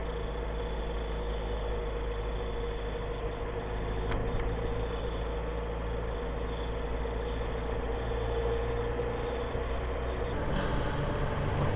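Car engine and tyre noise heard from inside the cabin while driving at a steady pace, with a steady low hum and a faint, thin high-pitched tone.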